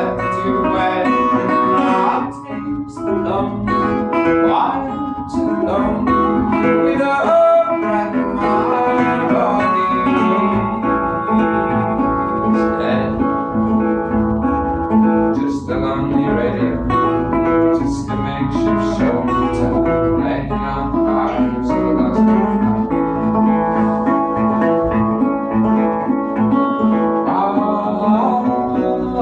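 Resonator guitar picked and strummed in a steady, continuous rhythm.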